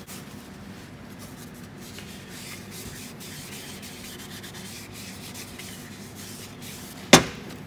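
A lint-free cloth rubbed around the bore of a freshly honed Rotax 582 cylinder, a steady scrubbing of cloth on metal as the honing grit is wiped out. A single sharp knock sounds near the end.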